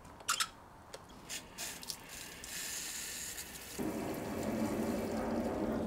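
A few sharp clicks, then a garden hose spray gun hissing water onto a potted Japanese larch bonsai and its soil, the spray growing louder from about halfway through.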